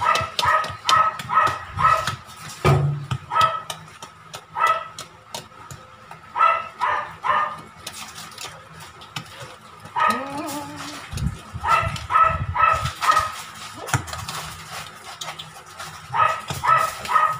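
A small dog barking in quick runs of three to five short yaps, several times over. Under it, faint clicks and scraping of a wire whisk stirring batter in a stainless steel bowl.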